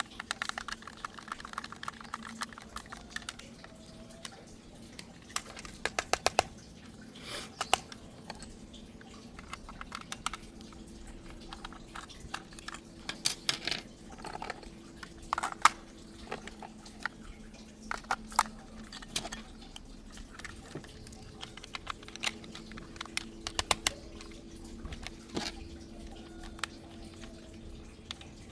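Irregular clicks, taps and light rattles of hard plastic being handled, with a faint steady hum underneath.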